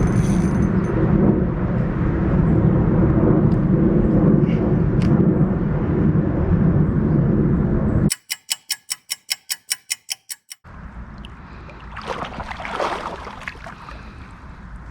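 Loud low rumble on the camera microphone for about eight seconds, then a run of rapid sharp clicks, about five a second, for a couple of seconds, then quieter creek water with a short splashy patch near the end.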